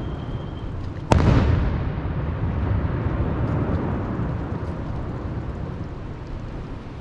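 A fireworks shell bursts with one sharp loud bang about a second in. A long low rumble follows and slowly fades.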